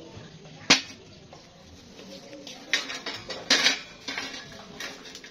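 Pieces of cut steel clinking and clanking as they are handled and set down. There are several sharp clanks: one loud one about a second in, then a cluster in the second half.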